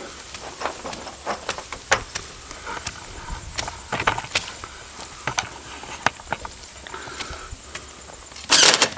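Scattered knocks and clicks as a metal RV power-pole panel box is held and shifted against a wooden pole, then near the end a cordless drill runs in a loud short burst, driving a screw to fasten the box to the pole.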